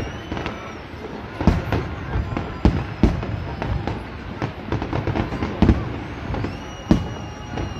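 Fireworks display: shells bursting with about five sharp bangs at uneven intervals and crackling in between. A high whistle rises and then holds near the end.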